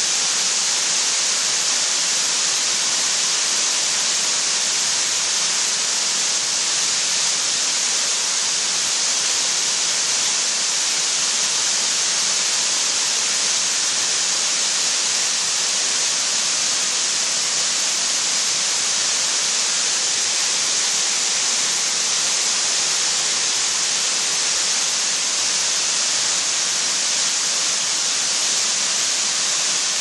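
Waterfall falling down a rock face into a pool: a steady, unbroken hissing rush of water.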